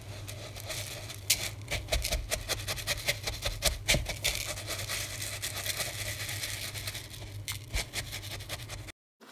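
Silicone spatula stirring crushed digestive biscuit crumbs with melted butter in a bowl: irregular scraping and clicking against the bowl, over a low steady hum.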